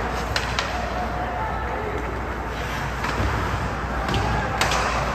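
Ice hockey game in play: steady rink noise with faint voices, broken by two pairs of sharp clacks of sticks and puck, one pair within the first second and a louder pair near the end.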